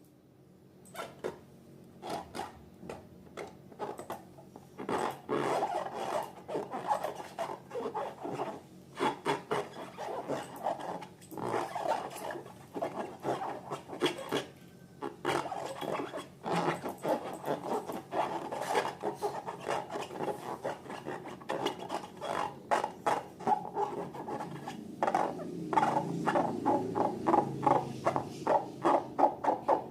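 Slime being worked by hand or stirred: a dense, irregular run of sticky clicks, crackles and squelches, growing thicker near the end.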